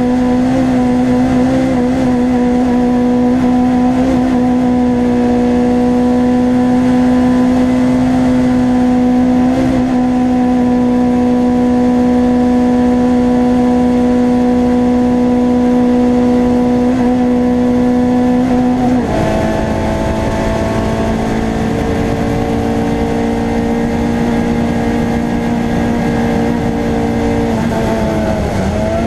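A racing car's engine heard from inside its stripped, roll-caged cabin, held at steady revs while driven hard. About 19 seconds in the pitch drops suddenly, then climbs slowly, and it drops again near the end.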